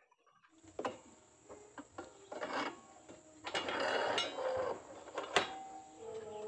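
Hand work on metal and wooden boat parts: scattered clicks and knocks, a longer scraping rasp about halfway through, and a single sharp knock near the end.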